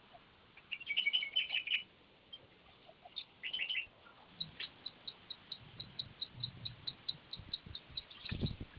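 Birds chirping in two short bursts, then an even series of short high pips, about four a second.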